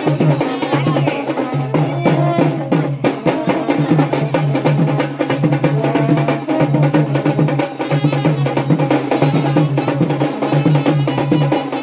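Music with fast, steady drumming and other instruments.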